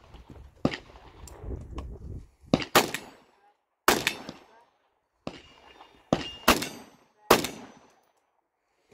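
Rifle shots fired in an uneven string, single shots and quick pairs, about seven in all, each trailing off briefly.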